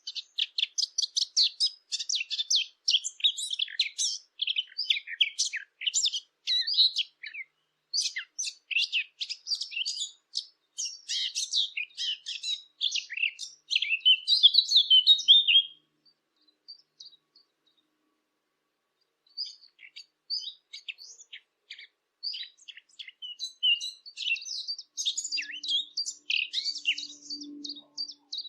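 A Sylvia warbler, the bird called the fig bird, singing long runs of fast, chattering warble. The song breaks off for about three seconds a little past halfway, then starts again.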